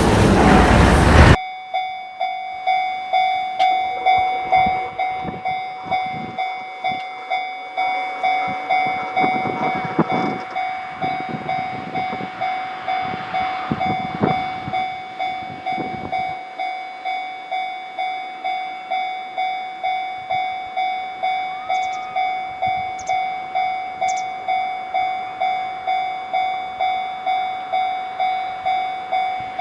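Japanese railway level-crossing warning bell ringing, a steady electronic ding repeating about twice a second, with a train running past the crossing in the first half. It opens with a second of a louder passing train that cuts off suddenly.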